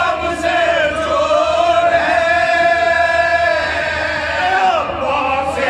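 A group of men chanting a marsiya, a sorrowful Urdu elegy, together and unaccompanied, drawing out one long held note in the middle.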